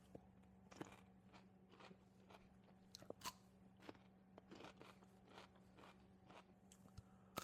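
Faint crunching and chewing of raw cucumber in the mouth, in many short, irregular crunches.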